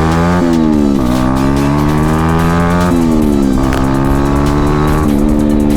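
Yamaha R15's single-cylinder engine running very loud without its muffler, through only a bare pipe, under acceleration. The pitch climbs and drops back several times, as through gear changes.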